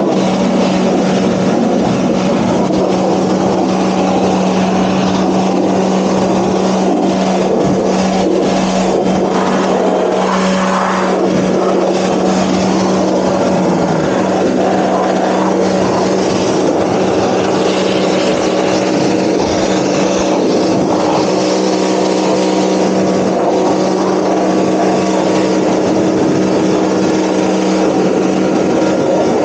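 Stream high-pressure washer running steadily, its motor and pump humming under the hiss of the water jet.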